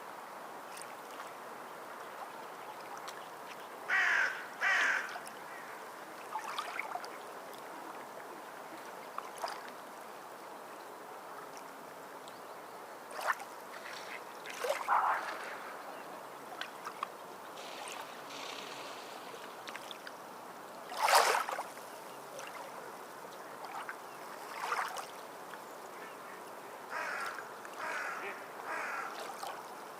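Ducks quacking in short, scattered calls, some in quick pairs and a run of three near the end, the loudest about two-thirds of the way through, over a steady wash of sea water.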